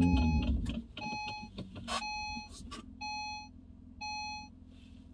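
A car's warning chime sounding about once a second, five times, each a short ringing tone. A loud low rumble from the car fills the first second.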